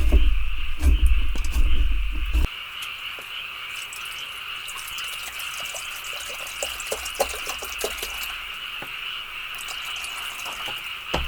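Steady chorus of frogs calling. A heavy low rumble cuts off abruptly about two and a half seconds in, and scattered light clicks follow.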